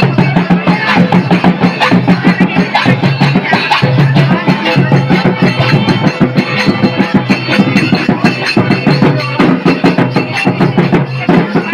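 Santali folk dance music driven by quick, steady drum beats.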